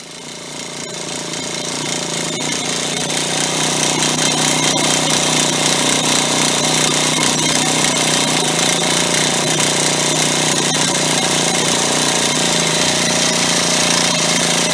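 A hand-held electric starter cranks a GO 28R gasoline model engine without a break, making a steady mechanical buzz that builds over the first few seconds and stops abruptly at the very end. The engine does not fire, because it is getting no spark from its prototype ignition.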